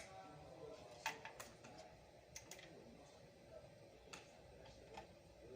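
Faint, scattered small clicks and taps, about half a dozen spread irregularly, over quiet room noise.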